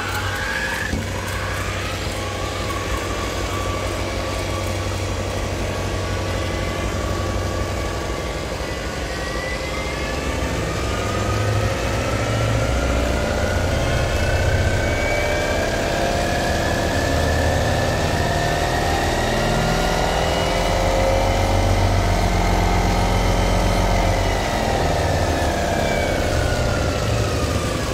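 Car engine sound effect with a steady low drone. Its pitch climbs slowly, holds, then falls away near the end.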